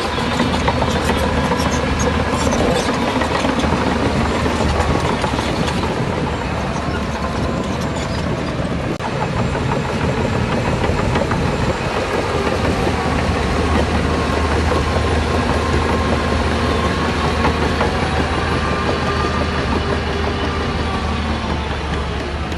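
Heavy diesel earthmoving machinery running under load, a steady low engine drone with metallic clanking, most noticeable in the first few seconds.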